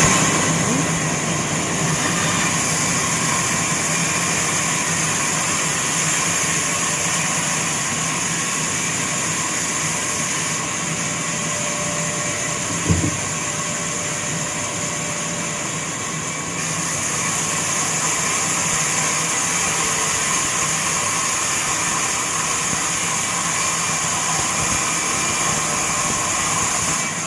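Woodworking saw machine running steadily, a constant mechanical whir with a high hiss, and a single short knock about halfway through.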